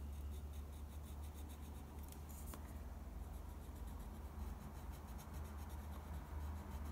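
Black pencil crayon shading on paper, a faint scratching, over a steady low hum.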